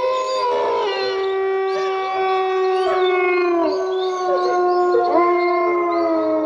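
A pack of wolves howling in chorus: several long howls at different pitches overlap, held steady with occasional slides up and down.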